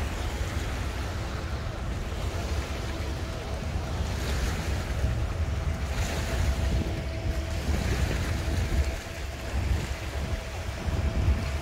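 Wind buffeting the microphone over the wash of lake water at the ramp, with a faint steady hum under it.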